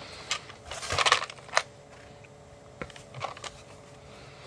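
Light clicks and rattles of small parts and a hand tool being handled, a few separate clicks with the sharpest about a second and a half in.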